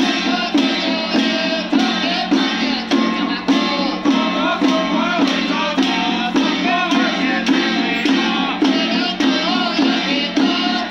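Men chanting a ritual invocation together, with a handheld drum struck steadily about twice a second. It is the chant for the eye-opening consecration of a deity statue.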